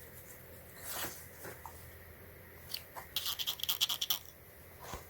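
A plastic power strip being handled and turned over: a soft rub, a few light clicks, then a quick rattle of clicks lasting about a second.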